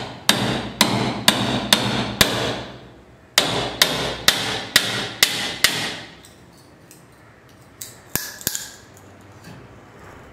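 Hammer blows on a wood chisel cutting into a pine block: two runs of five or six sharp strikes, about two a second, with a short pause between, then a few lighter taps near the end.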